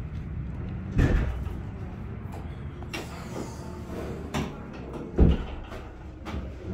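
Aluminium-framed glass entrance doors being opened and swinging shut, with several sudden thuds, the loudest about a second in and just after five seconds.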